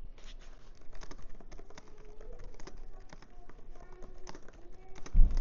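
Typing on the keyboard of a 2011 13-inch MacBook Pro with two fingers: an uneven run of key clicks, with a heavier thump about five seconds in.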